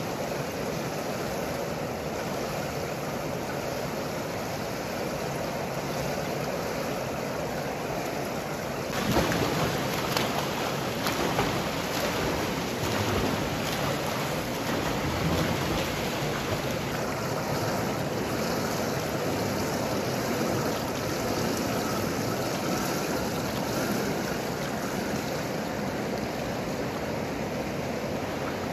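Swimmers splashing in a pool: a continuous wash of churning water, which grows louder from about nine seconds in with many quick splashes of arm strokes and kicking.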